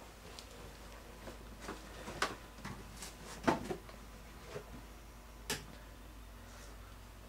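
Scattered light clicks and knocks, several in all, the sharpest about three and a half seconds in, over a faint steady low hum.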